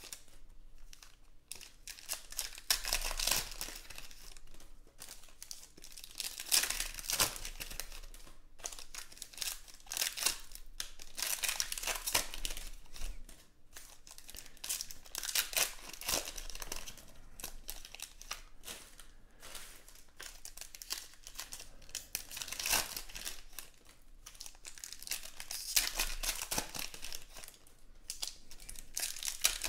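Foil trading-card pack wrappers crinkling and tearing as packs of football cards are opened, in bursts every few seconds, with quieter handling of the cards between.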